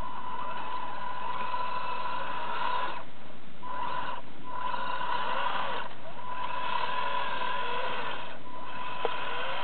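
Radio-controlled rock crawler truck's motor and gears whining in stretches as it crawls over rocks, stopping and starting four times, over a steady high-pitched tone.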